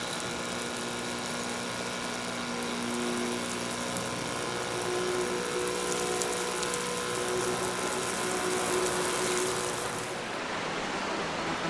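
Small homemade electric shower pump running steadily with a hum, while water hisses out of a hose spray wand onto a camping trailer's roof and solar panels. The spray hiss stops about ten seconds in.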